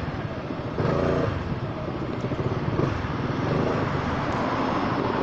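Honda Forza 300 scooter's single-cylinder engine running under way, with wind and road noise, getting louder about a second in.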